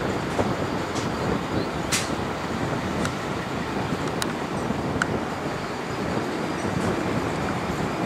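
Twin-engine wide-body jet airliner's engines running as it moves along the runway: a steady, even noise with no speech, broken by a few brief sharp clicks about a second apart in the first half.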